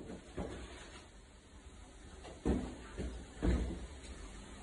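Four dull knocks at uneven spacing, the loudest two about two and a half and three and a half seconds in, each with a short echoing tail.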